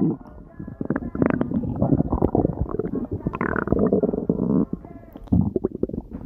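Human stomach growling: a long, irregular gurgling rumble from about a second in until past the middle, then a short burst of gurgling a little after five seconds.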